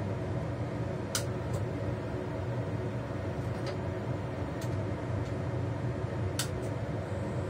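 A steady low mechanical rumble, with a few light clicks scattered through it.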